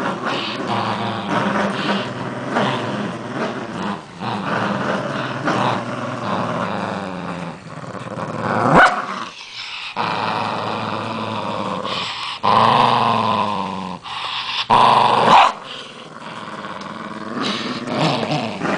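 Two small poodle-type dogs growling nonstop while tugging against each other on a plush rope toy, the play-fight growl of a tug-of-war. It rises into two louder, higher-pitched stretches in the second half.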